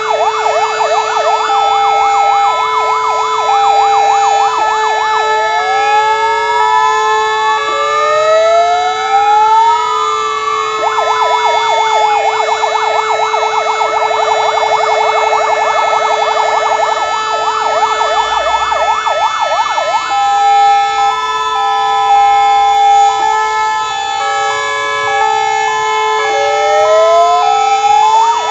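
Fire-engine sirens sounding together as a commemorative salute. Several electronic sirens overlap, cycling between a fast yelp, a two-tone high-low pattern and slow rising and falling wails, over a steady held tone that never stops.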